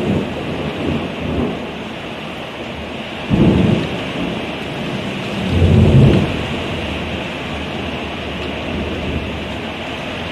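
Heavy rain pouring steadily, with thunder: a sudden clap about three seconds in, then a louder, longer rumble around six seconds.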